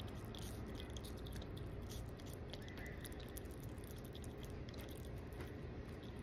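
Pet skunk chewing and licking a chunk of watermelon: a dense, irregular run of small wet clicks and smacks.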